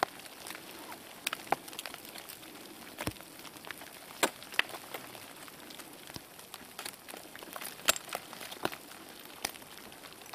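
Ice axe picks striking snow-ice: sharp, irregular knocks and crunches, a dozen or so, over a faint steady hiss.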